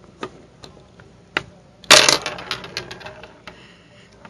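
Small plastic board-game pieces clicking and clattering as they are handled, with one louder clatter about two seconds in followed by a quick run of rattling clicks.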